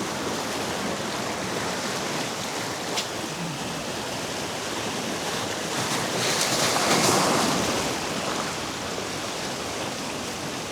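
Sea waves washing against a rock jetty, with wind on the microphone; one wave surges louder about six to eight seconds in.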